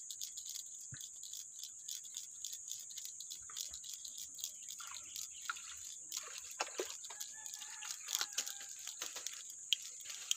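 Rural outdoor ambience: a steady high-pitched hiss with many tiny ticks, and from about halfway in, rustling and clicks as the camera is moved through leaves and gear is handled.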